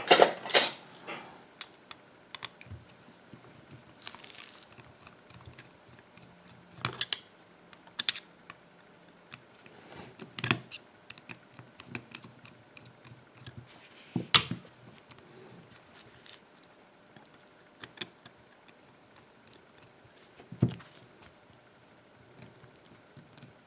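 Scattered small metal clicks and taps as a Sargent 6-pin lock cylinder is taken apart by hand, with a handful of sharper knocks spaced a few seconds apart.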